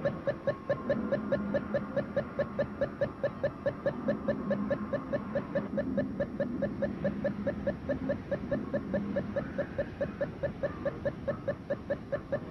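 Rapid electronic beeping: short beeps at one steady pitch, about four a second, repeating evenly over a low wavering hum.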